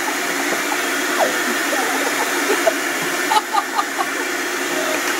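Electric vacuum cleaner running steadily, its motor a constant rushing whine. The sound turns duller a little over three seconds in.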